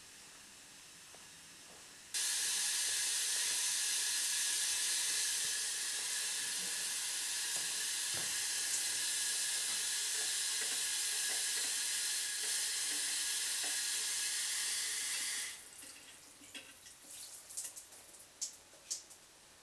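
Shower running: water spraying from the showerhead in a small tiled cubicle, turned on suddenly about two seconds in, running steadily, and shut off sharply about thirteen seconds later, after which a few small clicks and taps are heard.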